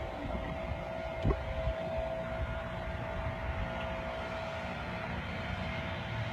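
A small motor running steadily, a constant whine over a low rumble, with a single knock about a second in.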